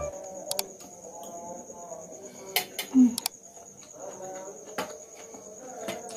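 Crickets chirping steadily in the background, with a few sharp clicks and one dull thump about three seconds in from a spoon and plate as someone eats.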